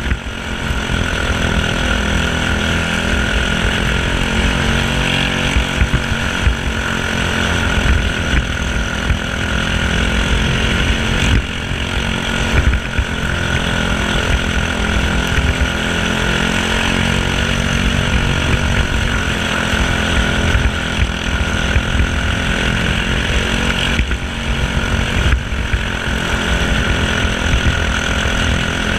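Briggs & Stratton LO206 single-cylinder four-stroke kart engine running at racing speed, heard from the driver's seat; its pitch rises and falls gently.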